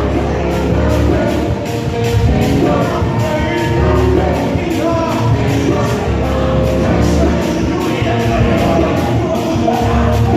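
Church youth choir singing a gospel song over a live band, with heavy bass and a steady drum beat.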